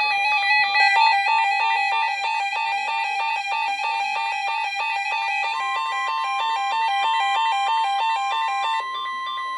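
Weather radio receiver's alert alarm going off, set off by the Required Weekly Test's SAME header: a loud, rapid electronic warble of alternating beep tones over a steady high tone. A steady higher tone joins about halfway through.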